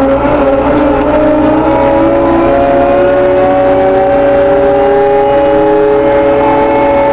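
Caterpillar IT914 loader's diesel engine running at high revs, its pitch holding steady and creeping slightly upward.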